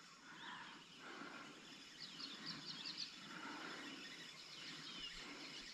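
Faint outdoor background with a bird twittering: a quick run of high chirps about two seconds in.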